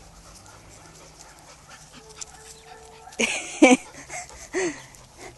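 Dog yelping twice in quick succession about three seconds in, then giving a short whine, during play with other dogs.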